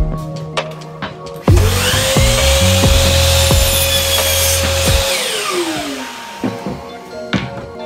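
DeWalt 12-inch sliding miter saw's motor spins up about a second and a half in and its blade crosscuts a wooden board for a few seconds. The blade then winds down with a falling whine once the trigger is released, over background music with a steady beat.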